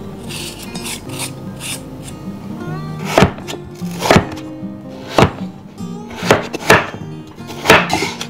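Chinese cleaver chopping a raw potato on a wooden cutting board: a series of about seven sharp knocks of the blade hitting the board, starting about three seconds in, over acoustic guitar music.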